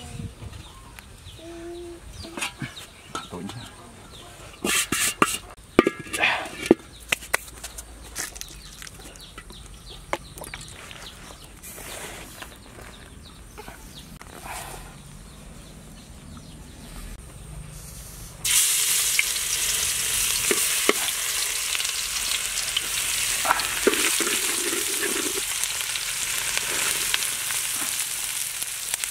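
Scattered knocks and clicks of a wok being handled and ingredients chopped on a wooden block. About two-thirds of the way in, a sudden loud sizzle starts as sliced greens, chilli and garlic go into hot oil in a steel wok, and they keep frying steadily while being stirred.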